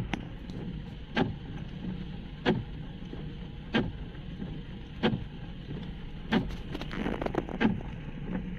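Windscreen wipers sweeping in rain, heard from inside the car's cabin: a thump about every 1.3 seconds as the blades reach the end of each stroke, over a steady low hum. In the last two seconds several quicker clicks and knocks come in.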